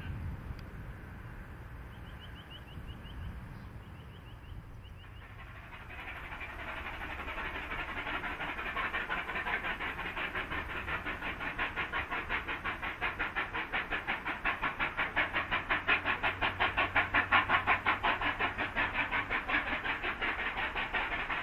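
Exhaust beats of steam locomotives 3801 and 3830, NSW 38 class Pacifics, hauling a train. The rapid, even beats come in about five seconds in, at roughly four a second, and grow steadily louder as the engines approach.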